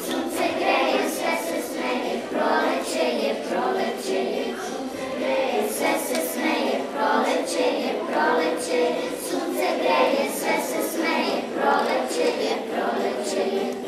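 A recorded children's song sung by a choir of young voices, playing back through the classroom speakers.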